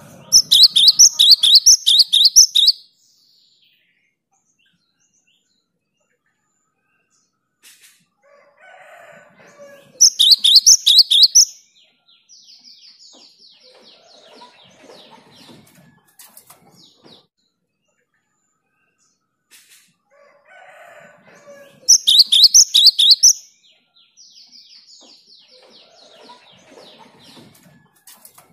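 Cinereous tit (gelatik batu) singing in loud bursts of rapid repeated whistled notes, three bursts roughly ten seconds apart, with softer chattering calls between them.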